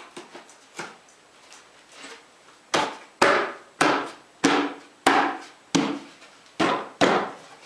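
A glued plywood side panel being knocked down onto its biscuits and dadoed shelf: about eight sharp blows on wood, roughly two a second, starting a little under three seconds in, after a few lighter knocks.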